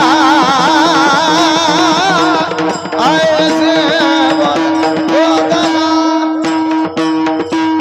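High male voice singing a devotional kirtan melody with heavy wavering ornaments, over a steady held drone. A new sung phrase comes in about three seconds in, and percussion strikes join in the second half.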